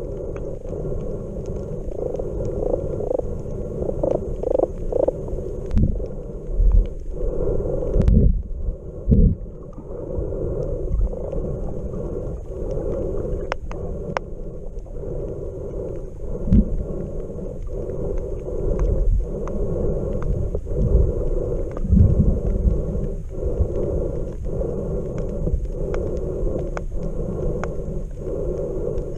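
Muffled underwater rumble of water moving against a submerged camera, in irregular surges and low thumps, with scattered sharp clicks.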